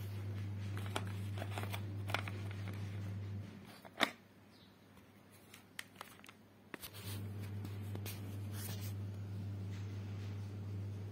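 Light clicks and rustles of small objects and plastic packaging being handled, with the sharpest click about four seconds in. Under them runs a steady low hum that drops out for about three seconds in the middle.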